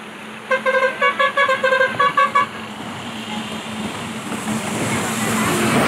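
A vehicle horn honking in a rapid string of about ten short toots, starting about half a second in and lasting some two seconds, over the steady rush of fast-flowing floodwater that grows louder near the end.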